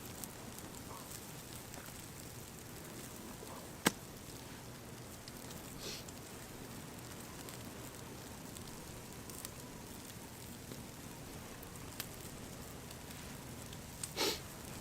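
Campfire burning with a steady low crackle and a few sharp pops, the loudest about four seconds in, and a short rustling burst near the end.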